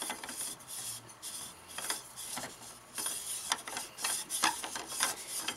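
Midwest Industries free-float handguard being turned by hand to unscrew it from the barrel nut's fine threads: a faint rubbing scrape with many small, irregular clicks.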